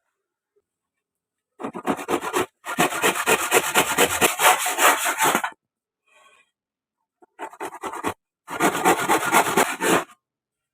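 A hand tool working wood with quick back-and-forth strokes, in four bouts separated by short pauses.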